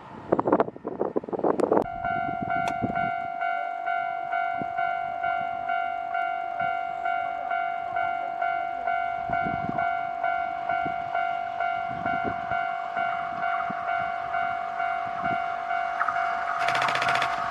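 Japanese level-crossing warning alarm ringing, a steady bell-like tone pulsing about twice a second, as the crossing signals an approaching train. It starts just after a brief stretch of loud clattering noise. Near the end the rushing noise of the oncoming train rises under it.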